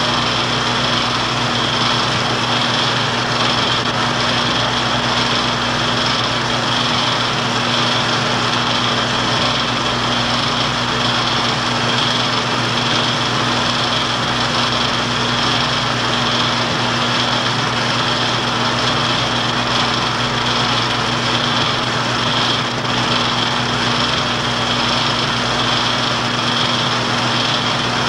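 Steady whir of a film projector running, with a constant low hum underneath.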